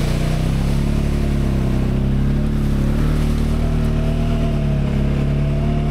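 ATV engine running at a fairly steady pace while riding: an even drone with only slight changes in pitch. A faint higher whine joins it about halfway through.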